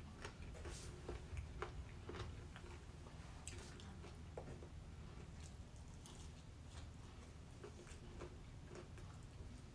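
Faint chewing and biting on a chicken wing, with scattered light clicks and taps from handling a plastic takeout tray.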